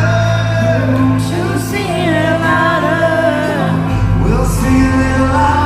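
Worship song: a singer's wavering melody over steady, sustained bass and instrumental backing.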